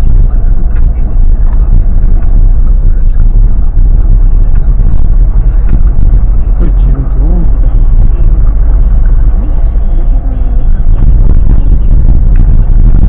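A car driving along a street, its engine and tyre noise a steady low sound heard from inside the cabin.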